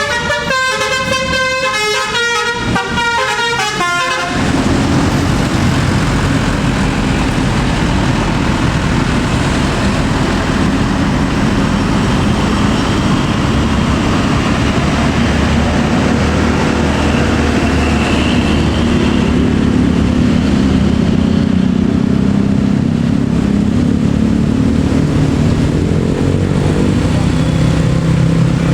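A tour bus's telolet basuri musical air horn playing a quick tune of stepped notes for about four seconds. Then the horn stops and a heavy bus engine with road noise carries on steadily, rising a little near the end.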